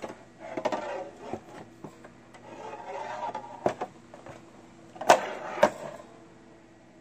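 Handling noise from the plastic housing of a magnifying lamp head being moved and turned over on a bench: rustling and scraping with several sharp knocks, the loudest two about five seconds in, half a second apart, over a faint steady hum.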